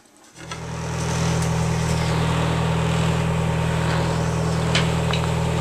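A boat's engine running steadily, heard from inside the cabin as a low, even drone. It comes in about a third of a second in and then holds level, with a couple of faint clicks near the end.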